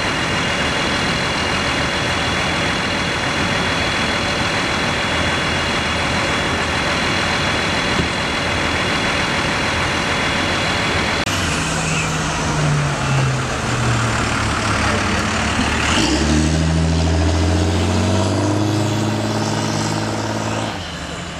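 Heavy emergency-vehicle diesel engines running under a steady wash of street noise, with a few faint high steady tones. After a cut about eleven seconds in, a truck engine sounds closer, its pitch shifting up and down, and it is louder and deeper from about sixteen seconds.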